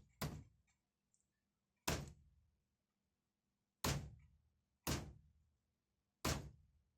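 Five sharp taps, one to two seconds apart, knocking on a stuck valve in an air pistol to try to free it.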